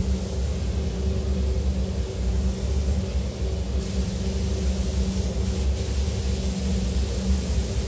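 Spray booth ventilation running with a steady low hum, under the hiss of compressed-air spray guns spraying a coating onto a car body; the hiss grows stronger about four seconds in.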